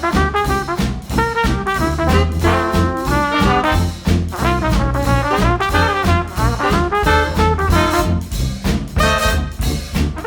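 Upbeat swing-jazz music with brass (trombone and trumpet) over a steady bouncing bass beat.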